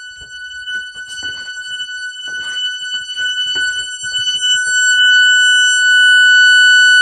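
Electronic alarm sounding one continuous steady tone, high-pitched with a buzzy edge. Irregular crackling over the first five seconds while the tone grows louder, then it holds steady and loud.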